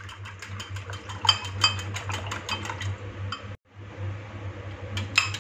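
Coil whisk beating raw eggs in a glass bowl: a fast, regular clinking of wire against glass, several strokes a second, breaking off briefly a little past halfway. A low steady hum runs underneath.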